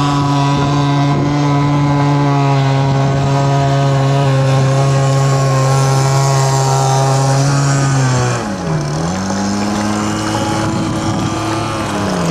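Poulan weed-eater two-stroke engine of an RC jet boat running at high revs, holding a steady pitch for about eight seconds. It is then throttled back sharply, revs part way up again, and eases off near the end.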